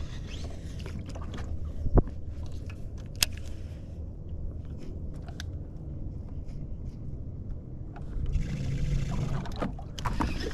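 Handling noises aboard a fishing boat: two sharp knocks about two and three seconds in and some scraping over a low steady rumble.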